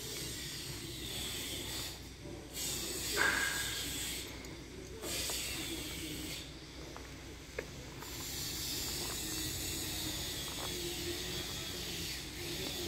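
Steady outdoor background hiss with a few faint clicks, one sharper click about two-thirds of the way through.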